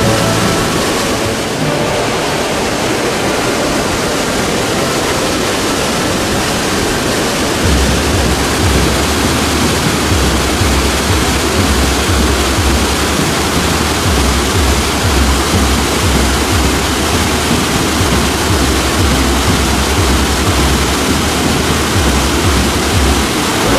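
Loud, steady rushing of white water from a large waterfall pouring over bedrock, with a deep rumble joining in about seven or eight seconds in.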